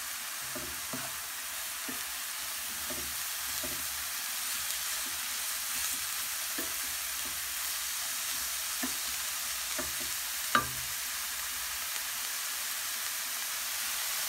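Chopped onion, leek, carrot and grated zucchini sizzling in oil in a frying pan, stirred with a wooden spatula that scrapes and taps the pan now and then. One sharper knock comes about ten and a half seconds in.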